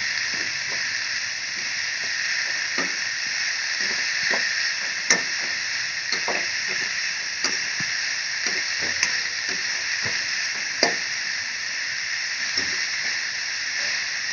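Vegetables sizzling steadily in hot oil in an iron kadai while a steel spatula stirs them, clicking and scraping against the pan at irregular moments; two louder knocks come about five and eleven seconds in.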